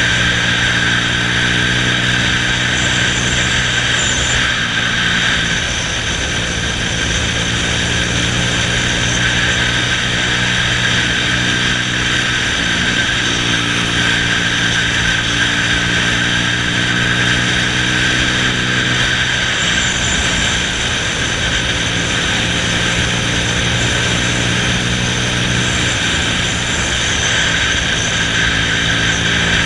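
Honda Astrea underbone motorcycle's small single-cylinder four-stroke engine running steadily while riding, with steady wind and road noise. The engine note eases and shifts briefly a couple of times.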